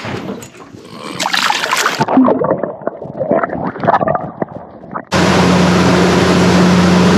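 Water splashing and gear knocking about on a small fishing boat. About five seconds in, a loud, steady drone with a low hum starts suddenly: a boat under way with its motor running.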